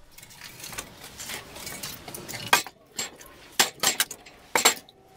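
Split firewood logs knocking against each other and clattering into a wire basket as they are pulled from a stacked woodpile. Soft handling at first, then a few sharp clunks in the second half.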